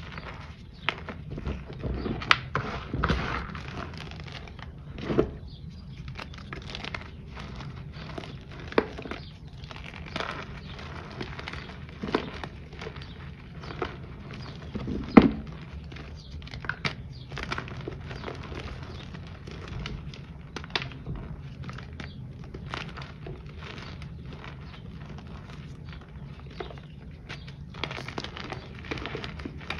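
Hands crushing handmade reformed powder shapes and chunks, a little crunchy: irregular soft crunches and crumbles, with a sharper crunch about halfway through.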